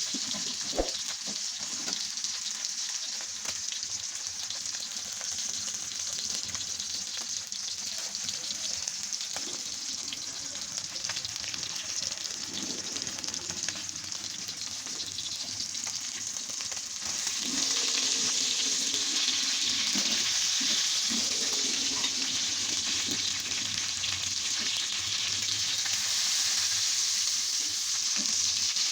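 Hot oil sizzling steadily in a pan as food fries, growing louder a little past the halfway point. There is a single sharp click near the start.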